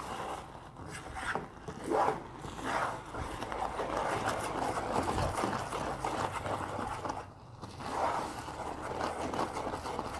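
A spoon scraping round the bottom of a metal pot in repeated, uneven strokes as it stirs a thickening milk-and-sugar mixture, keeping the condensed milk from sticking to the pan.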